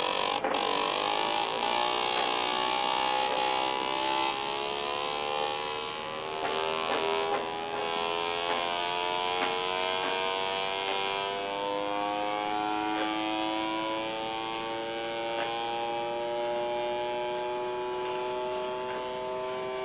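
Buzzing tone from an amplified speaker fed by a pick-up coil, carrying the induction signal of a single magnet spinning over a Bedini-style pulse motor's coil. The pitch rises slowly as the magnet picks up speed.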